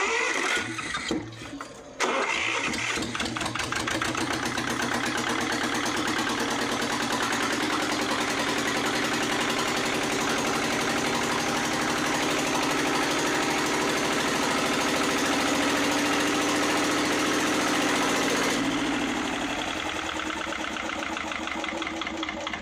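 Lister ST2 two-cylinder air-cooled diesel being cranked on its electric starter: a short first crank, then a long crank of about sixteen seconds as the freshly bled engine starts to fire. Near the end the starter drops out and the engine runs on its own, more quietly, on what is thought to be only one of its two cylinders, the other still needing its injector bled.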